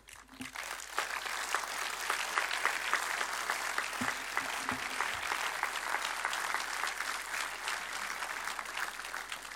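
Audience applauding, many hands clapping together. It swells within the first second, holds steady, and dies away near the end.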